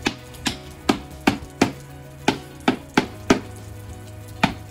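Hammer tapping on the wooden window frame: about ten sharp strikes at an uneven pace, each with a short ring.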